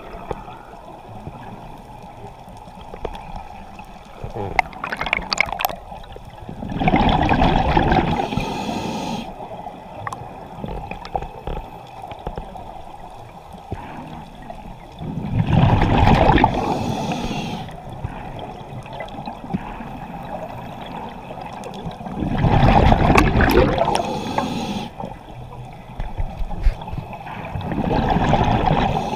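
Scuba diver breathing underwater through a regulator: four bubbling exhalations a few seconds apart, each lasting two to three seconds, with quieter hissing between them.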